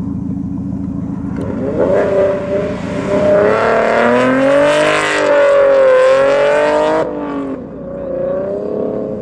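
Ford Mustang's engine revving up and down as the car is driven hard through an autocross cone course, the throttle going on and off between the cones. It is loudest as the car passes close in the middle, then turns abruptly quieter and more distant near the end.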